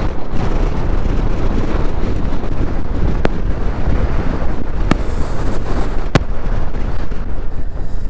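Strong wind blasting across the microphone, a loud, heavy rumble with no let-up. Three sharp ticks cut through it about three, five and six seconds in.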